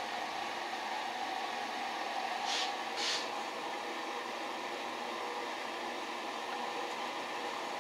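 Steady fan-like workshop noise, with two brief scratchy rustles about two and a half and three seconds in from gloved hands twisting safety wire on a carburetor.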